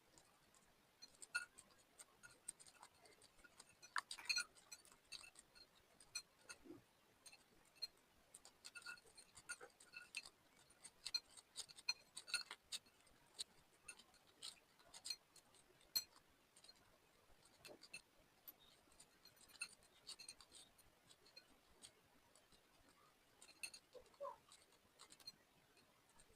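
Slime being worked by hand, giving faint irregular sticky clicks and crackles.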